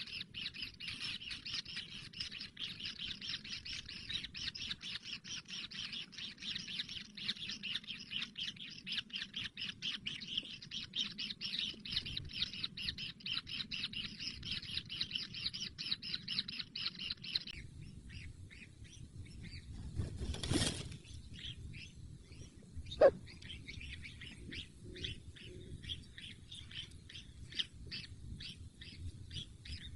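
Kingfisher chicks giving rapid, continuous begging chirps that break off suddenly, then pick up again more faintly. A sharp knock sounds during the pause.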